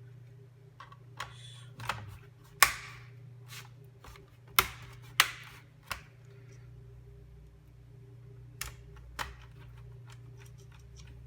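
A series of sharp clicks and snaps as laptop RAM modules are pushed back into their slots and latched. The loudest click comes about two and a half seconds in, a pair follows around five seconds, and two softer ones come near the end, over a steady low hum.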